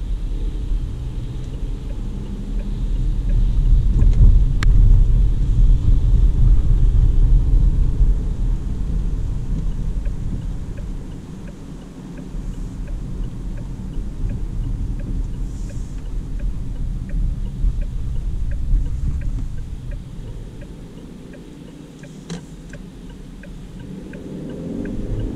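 Low in-cabin rumble of the DongFeng Forthing T5 EVO on wet roads, from its tyres and 1.5-litre turbo engine. It swells for several seconds as the SUV accelerates and eases as it slows.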